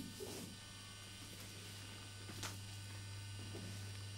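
Low, steady electrical mains hum with faint hiss, and two faint short clicks, one just after the start and one about two and a half seconds in.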